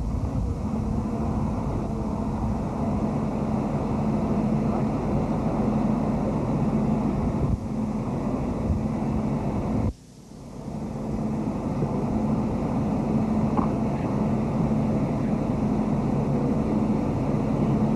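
Steady background noise with a low hum on an old camcorder's soundtrack, with no distinct event; it drops out suddenly about ten seconds in, where the recording cuts, and swells back within a second.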